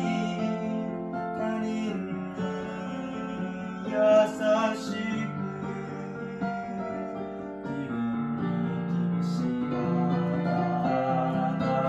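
Digital piano playing a chordal accompaniment, with a young male voice singing the melody along over it; the voice is loudest briefly about four seconds in.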